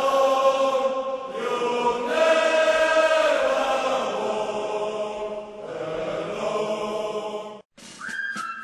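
A group of voices singing long held chords that change every second or two, a choir-like jingle closing an advert. It cuts off suddenly near the end, and another piece starts with a whistle-like tune over clicking percussion.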